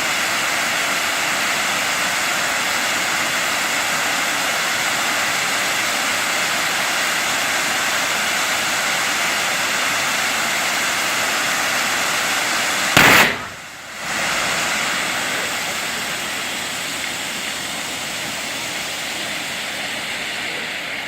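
Fireworks display: a steady rushing, hissing noise of burning pyrotechnics, broken about two-thirds through by one sharp, loud bang, after which the sound dips sharply for a moment and then carries on a little quieter.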